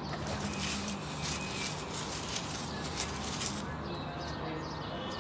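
Domestic pigeons cooing, with a burst of rapid wing fluttering over the first three and a half seconds.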